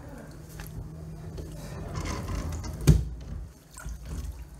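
Muddy floodwater sloshing and splashing inside a flooded room, with one loud thump about three seconds in.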